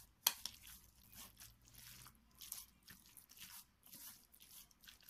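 Fork stirring raw minced-meat filling with diced potato and onion in a glass bowl: faint, irregular wet squishing and scraping, with one sharp click about a third of a second in.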